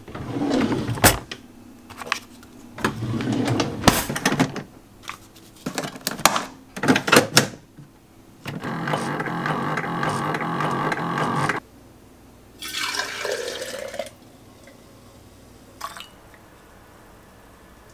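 Kitchen handling sounds: a drawer and a run of clicks and knocks, then a single-serve pod coffee maker running steadily for about three seconds after its button is pressed, and a short pour of liquid near the end.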